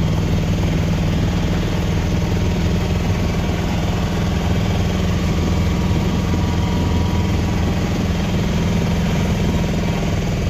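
Steady engine drone and rumble of a passenger vehicle, heard from inside its cabin.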